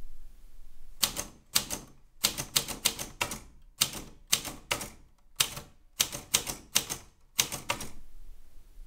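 Keys of a manual typewriter being struck one at a time, about fifteen sharp clacks at an uneven typing pace, starting about a second in and stopping near the end.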